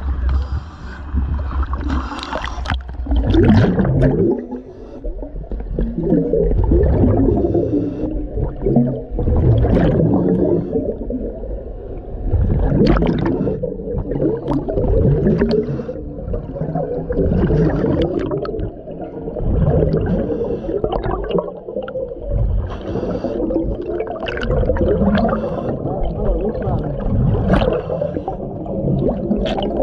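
A diver breathing inside a commercial diving helmet underwater: surging breaths and gurgling exhaust bubbles, swelling and easing every couple of seconds.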